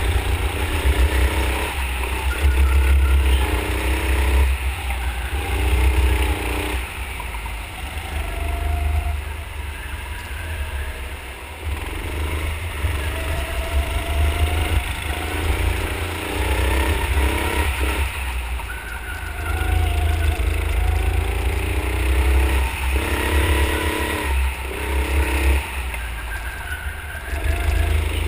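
A 9 hp go-kart engine heard from onboard, its pitch rising and falling over and over as the throttle opens and closes through the corners, over a heavy low rumble.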